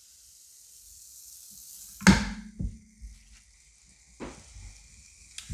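Waffle batter sizzling on the hot plates of a Dash mini waffle maker, a steady hiss. About two seconds in the lid closes with a loud clunk and the sizzle turns quieter, followed by a couple of lighter knocks.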